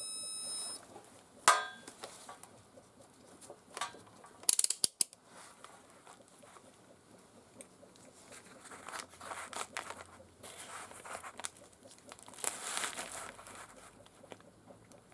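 Hand handling noises: a few sharp clicks and taps, the loudest about a second and a half in and a quick cluster near five seconds, then stretches of light rustling and scraping.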